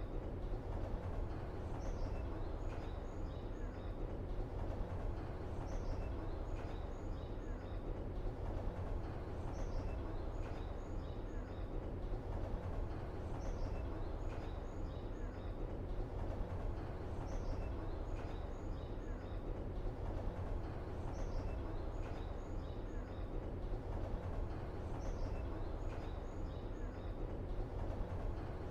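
Steady low rumble of background ambience, with a short group of high chirps repeating about every two and a half seconds in the same pattern, like a looped ambience track.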